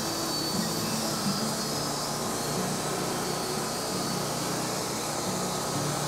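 Wood-Mizer LT40 portable band sawmill running steadily.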